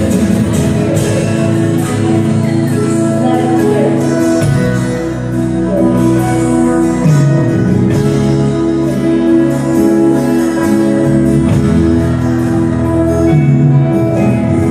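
Praise and worship band music with sustained chords changing every few seconds.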